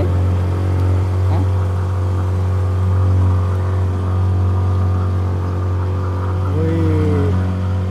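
A small wooden boat's motor running at a steady speed: an even, low drone that does not change in pitch.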